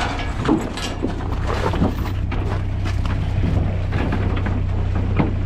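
Cattle being loaded into a stock trailer: scattered knocks and scuffs of the animals moving and bumping inside, over a steady low engine hum.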